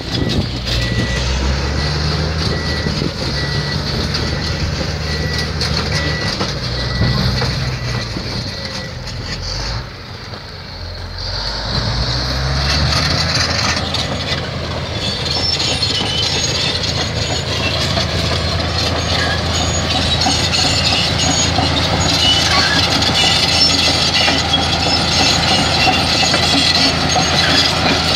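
Komatsu D375A crawler bulldozer's diesel engine running and changing pitch, with a reverse alarm beeping for the first several seconds. From about halfway on, its steel tracks clank and squeal as it crawls off a lowboy trailer.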